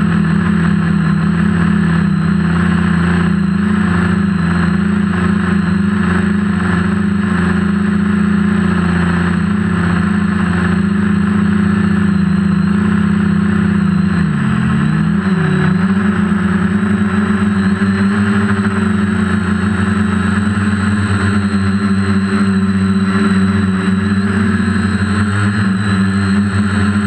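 DJI F450 quadcopter's four electric motors and propellers buzzing steadily, heard from the GoPro on board. About halfway through, the pitch dips briefly and comes back up as the motor speed changes.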